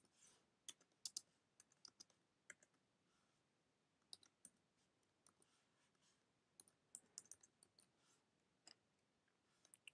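Faint, irregular key clicks of typing on a computer keyboard, single presses and short runs separated by pauses.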